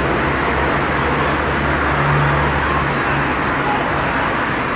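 Steady road-traffic noise with a low engine hum that fades out about three seconds in.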